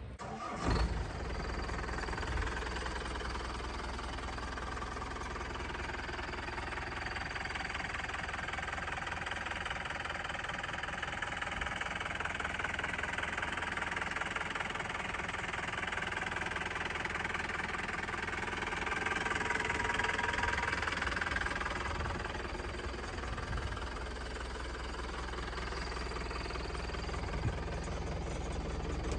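Mahindra Major's M2DI turbo diesel engine starting about a second in, then idling steadily, slightly louder around twenty seconds in. Its sound is coloured by an aftermarket whistle the owner has fitted.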